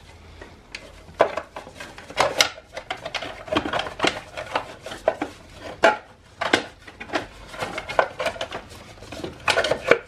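Hard plastic engine-bay case being worked into place over the coil packs by hand, giving a series of irregular clicks, knocks and clattering rattles.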